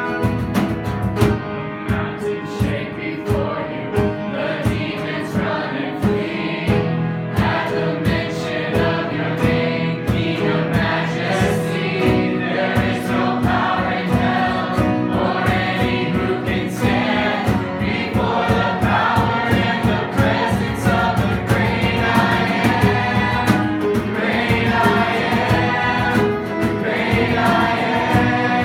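Worship music: several voices singing together over a band, with a steady beat.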